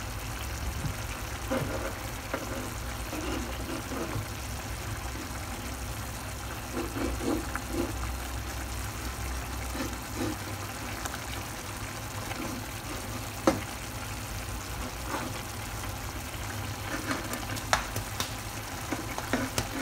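Eggs in tomato sauce simmering and sizzling in a pan while a metal spatula is slowly stirred through it, with scattered light taps and scrapes of the spatula on the pan, one sharper tap about two-thirds through, over a low steady hum.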